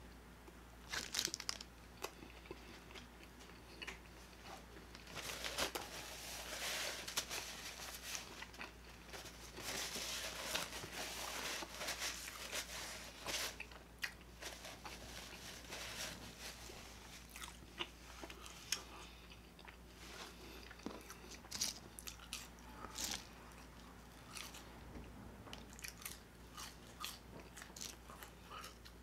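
Close-miked biting and chewing of a bacon cheeseburger and fries: crunchy bites and wet mouth clicks, coming in dense runs with pauses between.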